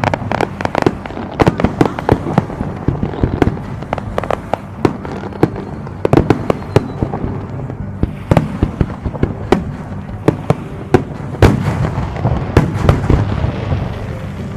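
Aerial fireworks bursting in rapid, irregular succession, many sharp bangs and cracks over a continuous low rumble of shell launches and their echoes, with a few louder reports about 8, 11 and 12 seconds in.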